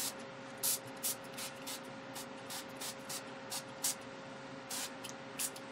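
Finger-pump ink spray bottle squirting ink onto a canvas board in a quick series of short hissing sprays, about two a second.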